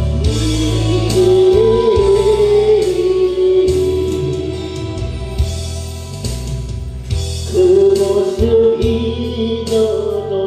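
A slow ballad: a long, held sung melody line in two phrases, with a pause between them, over a recorded backing track with a steady bass.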